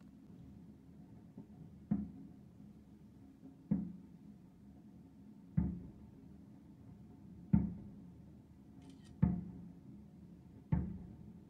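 Six heavy, dull booms, one about every two seconds, each with a short ringing tail, over a faint steady hum: a series of explosions.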